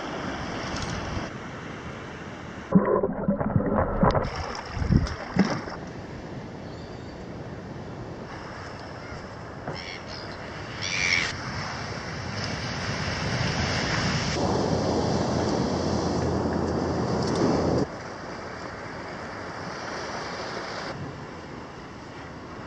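Surf washing and wind on the microphone, the noise changing abruptly several times. A cluster of loud knocks comes about three to five seconds in, and two short high sounds come a little past the middle.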